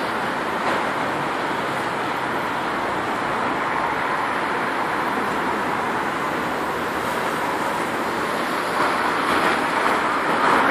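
City road traffic on a wet street: a steady hiss of passing vehicles that grows louder near the end as a vehicle passes close.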